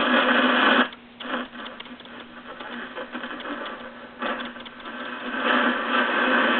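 Realistic DX-300 shortwave receiver hissing with static through its speaker as it is tuned across a higher shortwave band. The loud hiss drops away about a second in, stays weaker and uneven, then swells back near the end. On these bands the owner finds the set not as sensitive as it should be.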